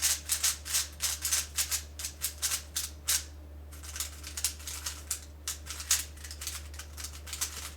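Plastic speedcube with adjustable spring compression being turned quickly, a rapid run of clacking layer turns with a brief pause about halfway through; the springs are set to a tight setting.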